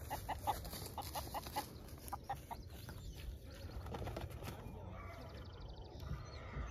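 Chickens clucking: a quick run of short calls over the first couple of seconds, then fewer and softer calls over a low rumble.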